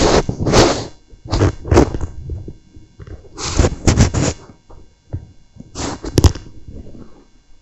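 Close-up handling noise: four bursts of rustling and knocking as a mobility scooter's throttle assembly and its wiring are turned over in hand.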